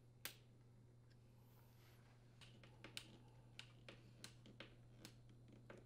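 Near silence over a low steady hum, broken by faint, sharp clicks: one about a quarter second in, then a string of small irregular ticks from about two and a half seconds on, as a T15 Torx screwdriver turns a screw into the corner of a dishwasher's metal door.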